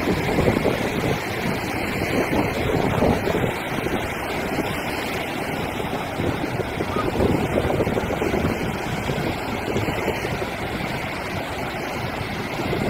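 Surf breaking and washing up the beach, swelling every few seconds, with wind buffeting the microphone.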